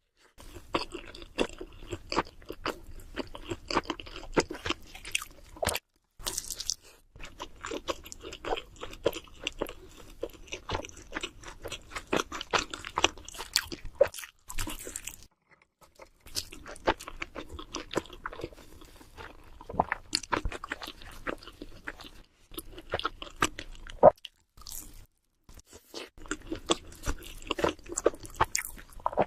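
Close-miked chewing and biting of cheese seafood pizza: dense runs of crunchy crackles and wet mouth clicks, broken by a few short pauses.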